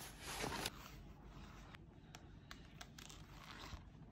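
Rustling and handling noise of things being moved about in a packed bag, louder for the first second, then faint with a few small clicks.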